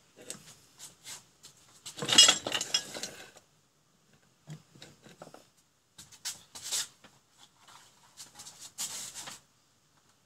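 Small hard objects handled and set down on a workbench: a clatter of hard, slightly ringing knocks about two seconds in, then scattered clicks, knocks and rustles of parts and wires being moved.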